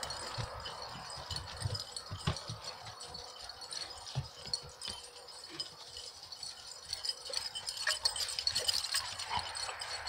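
Light metallic jingling and tinkling, mixed with many scattered soft knocks.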